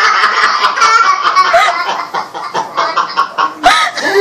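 A man and a small child laughing together in quick, repeated peals.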